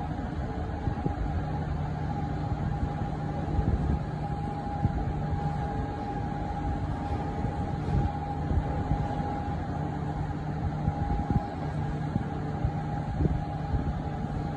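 Mobile crane's diesel engine running steadily while its hoist lowers a slung load, with a steady high whine over the low engine hum and a few faint knocks.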